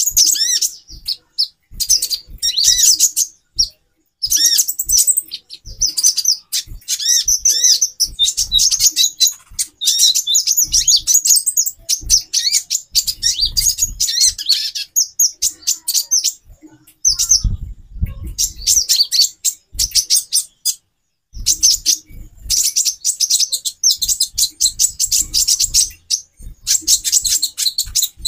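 Female konin (kolibri ninja) birds calling, a busy high-pitched twittering of quick chirps and trills in long runs broken by a few short pauses.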